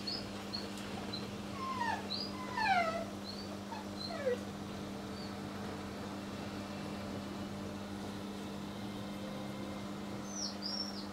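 A steady low hum runs throughout. Over it come short high whimpers, falling in pitch, several in the first five seconds and a cluster near the end.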